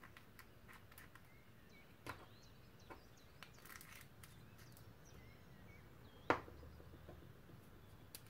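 Quiet room with a few faint light clicks and taps from small craft items being handled on a tabletop, with one sharper knock about six seconds in.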